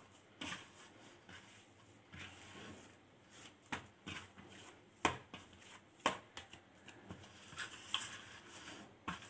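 Hands kneading and pressing murukku dough in a stainless steel bowl: soft rubbing and squashing, with a few sharp knocks against the steel, the loudest about five and six seconds in.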